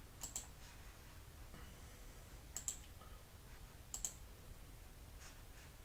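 Three sharp double clicks of a computer mouse, a couple of seconds apart, with a few fainter ticks after.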